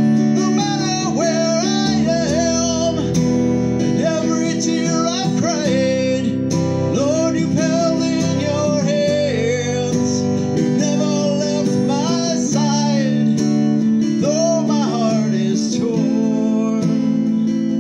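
Acoustic guitar strummed steadily in full chords, with a man singing over it in long, bending notes.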